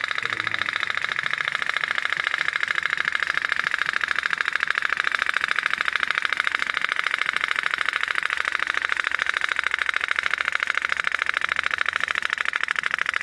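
Candle-fired pop-pop steam engine of a toy locomotive running, its diaphragm pulsing in a rapid, even popping beat that drives the wheels through a hook and sprocket.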